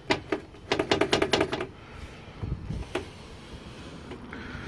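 Sheet-metal case of a network switch being handled and tipped: a quick run of sharp clicks and rattles in the first two seconds, a dull knock, then one more click about three seconds in.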